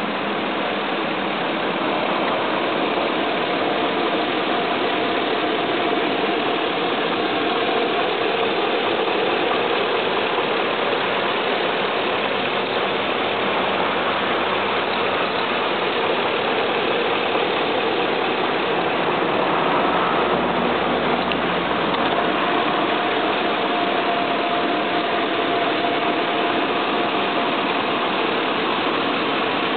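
2002 Chevy Suburban LT's Vortec V8 engine idling steadily, heard close up with the hood open.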